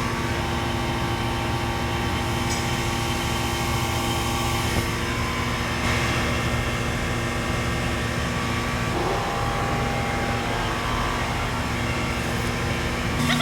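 A steady machine hum with a constant rushing noise, unchanging throughout.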